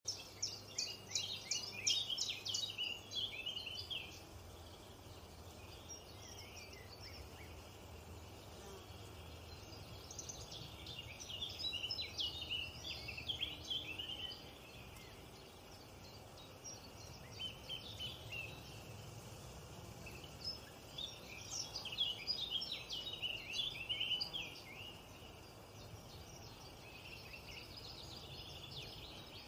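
Songbird twittering in several phrases of rapid, high chirps, each lasting a few seconds, with short gaps between them, over a steady low background rumble.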